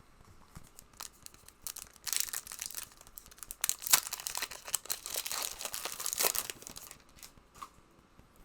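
A trading-card booster pack being torn open, its foil wrapper crackling and crinkling in a run of tears that lasts about six seconds.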